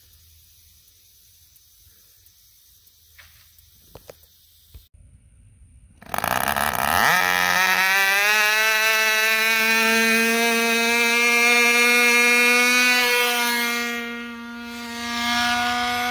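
Faint outdoor hiss with a few light clicks, then about six seconds in a small two-stroke model-airplane glow engine, the Torpedo .19 of a free-flight power model, is heard very loud at full throttle. Its high buzzing note climbs quickly in pitch and then holds steady, dipping in loudness briefly near the end before coming back.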